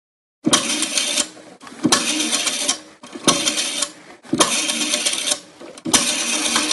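A rotary telephone dial being turned and let go five times. Each digit gives a short mechanical whirr of clicks as the dial spins back, some digits longer than others.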